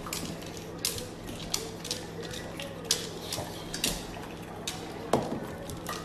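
Irregular sharp clicks and taps, a few a second at times, over a steady low background hum.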